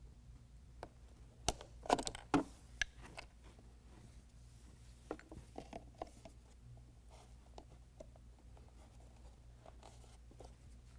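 Screwdriver prying at plastic push-in clips on a factory bumper, over a faint low hum. A quick cluster of clicks and scrapes comes about two seconds in, then a few lighter clicks around five to six seconds.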